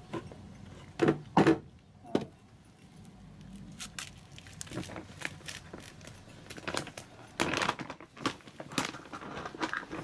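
A cat crunching dry kibble from a ceramic bowl: a run of small crunches and clicks as food and teeth knock against the bowl, louder about a second in and again near the end.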